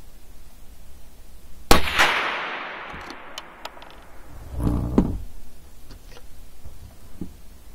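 A single sharp shot from a scoped CZ .22 LR rifle, echoing for about a second and a half in a walled indoor range. A few light clicks and a short rattle of handling the rifle follow.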